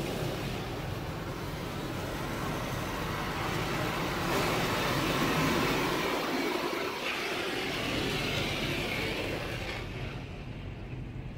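High-pressure rinse water from an automatic car wash spraying over an SUV, heard from inside the cabin as a steady rushing hiss over a low machinery hum; the spray swells in the middle and falls away near the end.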